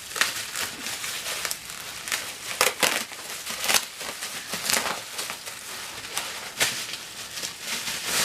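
Plastic bubble wrap around a book crinkling and rustling as it is handled and unwrapped, with irregular sharp crackles.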